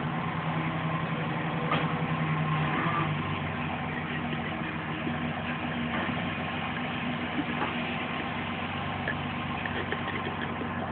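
Pickup truck engine idling steadily, its low hum a little stronger in the first three seconds.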